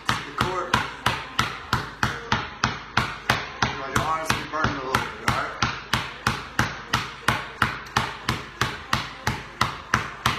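Basketball pounded low and hard on a concrete garage floor in a steady one-hand dribble, about three sharp bounces a second.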